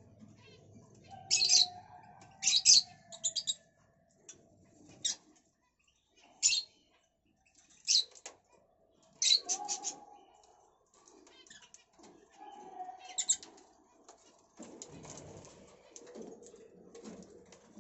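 Cockatiel chirping: short, sharp high calls repeated at irregular intervals, with a few lower whistled notes that slide in pitch.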